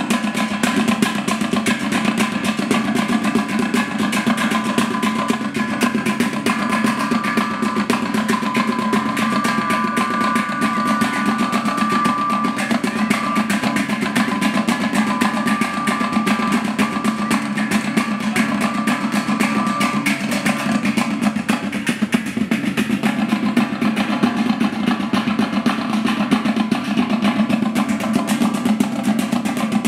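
Live percussion music played with drums: fast, steady beating, loud and unbroken, with a high held note sounding over it from about seven to twenty seconds in.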